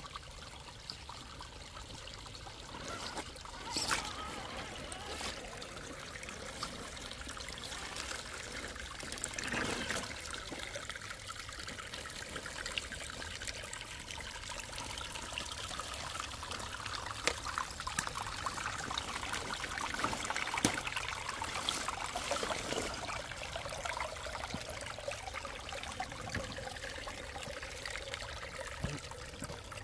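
Shallow creek water trickling steadily over rocks, with a few brief sharp clicks and knocks scattered through it.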